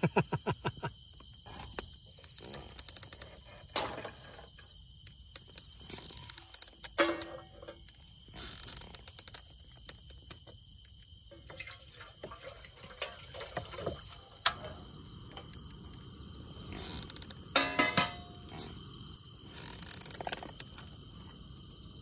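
Irregular sharp clicks and knocks, some in quick clusters, with a fast run of them at the very start, over a faint steady high-pitched insect drone.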